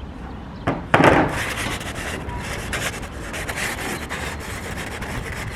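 Sandpaper rubbing in repeated strokes across a surface, sanding a rough spot flat, with one louder scrape about a second in.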